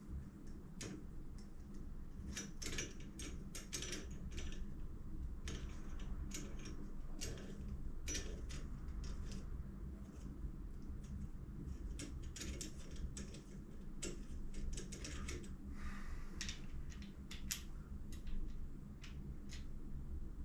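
Irregular clicks, taps and rattles of hard parts being handled and fitted together by hand, over a steady low hum.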